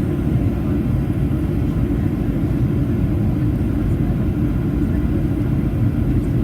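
Steady low drone inside the passenger cabin of a Boeing 737-800 in flight, from its CFM56 jet engines and the airflow over the fuselage. It stays even throughout, with no change in thrust.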